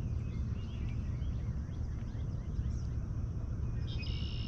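Outdoor lake ambience: a steady low rumble with faint scattered bird chirps, and a short high buzzing rattle near the end.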